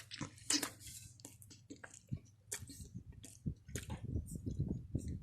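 A person chewing a bite of fried-egg sandwich close to the microphone: irregular munching with small wet clicks, thicker and louder in the second half.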